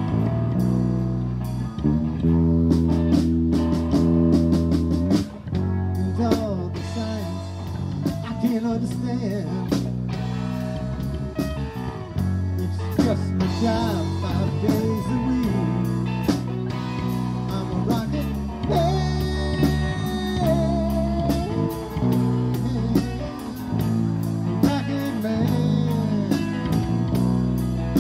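Live blues-rock band playing: electric guitars and bass guitar over drums keeping a steady beat, with a lead guitar bending notes.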